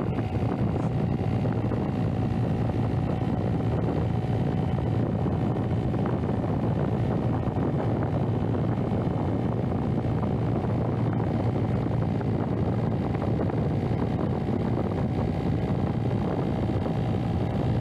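Steady wind rushing over the microphone, with a faint, even whine underneath from a small RC plane's electric motor and propeller running at constant throttle.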